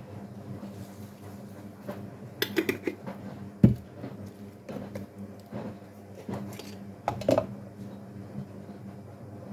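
Kitchenware clattering: dishes and utensils knocking together in short bursts, with one sharp knock a little over a third of the way in and another burst near the end, over a steady low hum.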